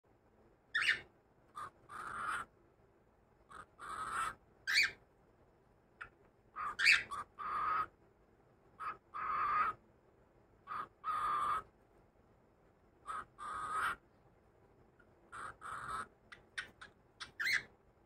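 Cockatiel chattering: a string of short rising chirps and longer calls of about half a second, spaced a second or two apart, ending in a quick run of short chirps.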